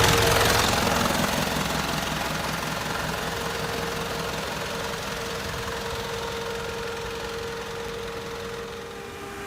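Hino S05D four-cylinder diesel engine in a 2002 Hino Dutro truck idling with a steady diesel clatter, growing gradually quieter over the first few seconds and then holding steady.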